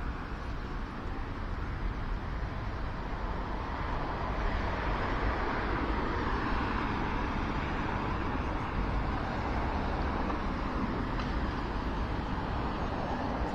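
City street traffic: cars driving along the road beside the pavement, the tyre and engine noise swelling about a third of the way in, over a steady low rumble.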